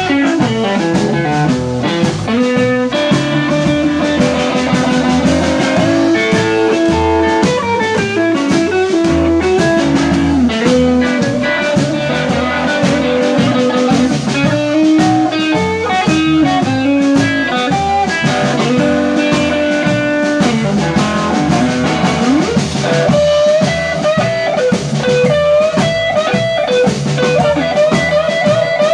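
Live blues band playing an instrumental passage: electric guitar on a hollow-body archtop, drum kit, and a blues harmonica played into the vocal microphone, with long held and bent notes.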